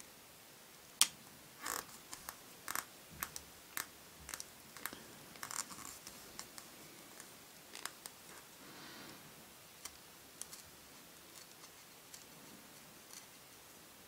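Faint handling sounds of metal tweezers and fingers on a hard plastic toy wheel while pressing a paper sticker into place: a run of small clicks, taps and scratches, with the sharpest click about a second in and a soft rub near the middle.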